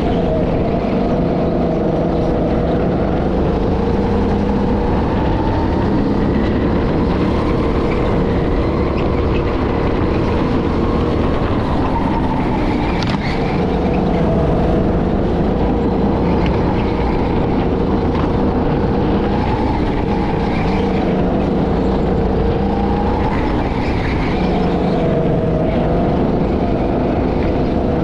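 Go-kart engine running hard, heard from on board, its pitch rising and falling over and over as the kart speeds up and slows for corners on a lap.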